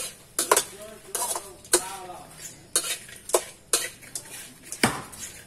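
Metal spatula scraping and clanking against a steel wok while stirring roasting bugs over a wood fire, in sharp, irregular strokes about one a second.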